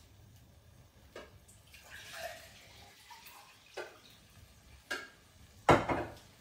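Chicken stock in a cooking pot splashing and dripping in a few short, separate bursts, the loudest near the end.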